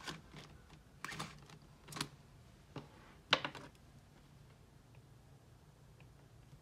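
Light clicks and paper rustles from handling a binder of zip-pouch cash envelopes and picking up a stylus, the sharpest click about three seconds in. Then faint taps as an Apple Pencil writes on an iPad screen.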